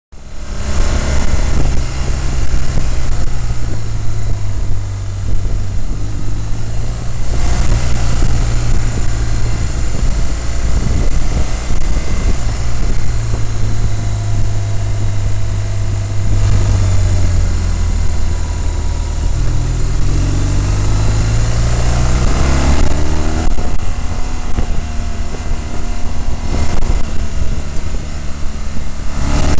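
Motorcycle engine running under way on the road, its note rising and falling with the throttle and climbing as it accelerates about two-thirds of the way through, with wind rushing over the microphone.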